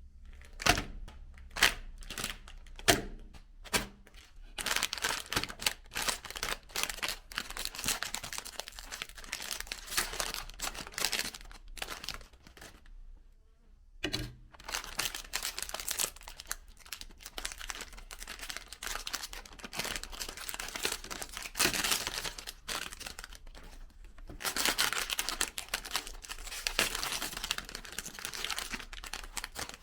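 Crinkling and tearing noises in long stretches, with a few sharp clicks in the first four seconds.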